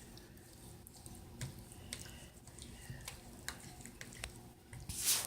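Fork clicking and scraping against a mixing bowl, beating sugar, shortening and eggs together: scattered light clicks, with a louder brief noise near the end.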